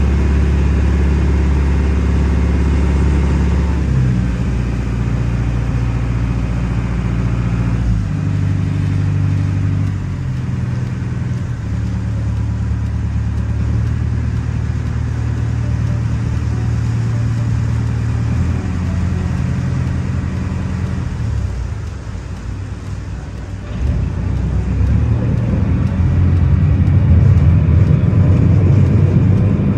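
Small passenger ferry's engine running, a steady low hum that steps up and down in pitch several times as the throttle changes. It grows louder and rougher near the end as the boat comes alongside the landing pier.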